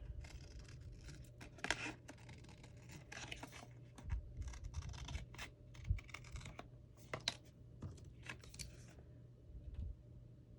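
Scissors cutting paper: a series of irregular short snips and paper rustles.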